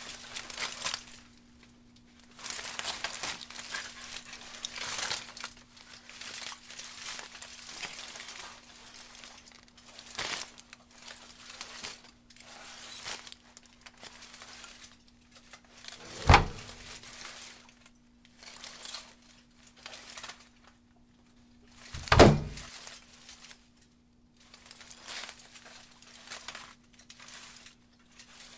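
Packaging crinkling and rustling in irregular bursts, like a microwave popcorn bag being handled and torn open, with two loud knocks, one about halfway through and one about three-quarters through, over a faint steady hum.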